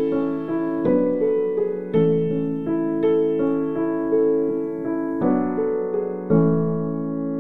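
Background piano music: soft chords struck about once a second, the last one about six seconds in held and fading.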